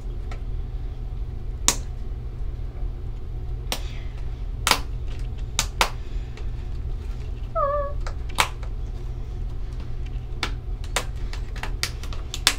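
Scattered sharp clicks and scratches of fingers picking at a small cardboard Shopkins Real Littles mini-pack box that is hard to get open, over a steady low hum. About two-thirds of the way through comes one short squeak that falls in pitch.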